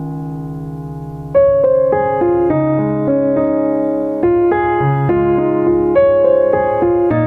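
Background music: a slow piano piece, a sustained chord fading, then new chords and melody notes struck from about a second and a half in.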